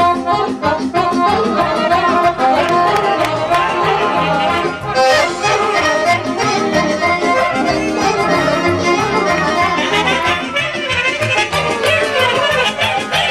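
Live accordion playing a quick, ornamented folk melody with a band behind it keeping a steady dance beat.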